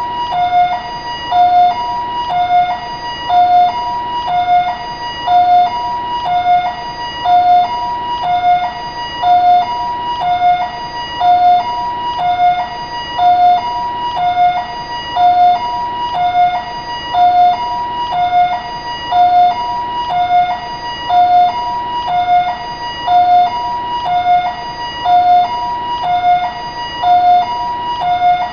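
Taiwanese ambulance siren sounding a two-tone hi-lo pattern: a higher and a lower tone alternate evenly, each held about half a second, over and over.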